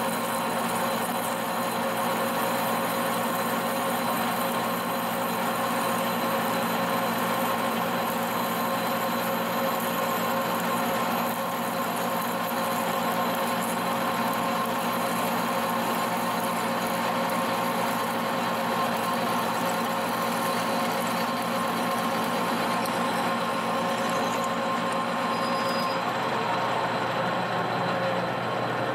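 Monarch engine lathe running steadily as a twist drill in the tailstock bores into the end of a spinning steel shaft. It is a continuous machine hum with several fixed tones, easing slightly near the end as the drill comes out.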